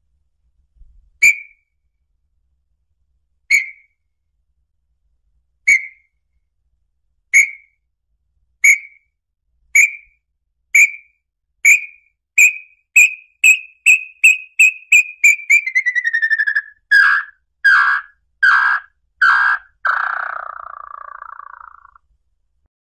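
Song of a tinamou known in the sertão as lambu-pé-vermelho: a series of clear whistled notes, slow at first and speeding up to a rapid run. The notes then slide down in pitch, end in four harsher, lower notes and finish with one long rough note that fades away.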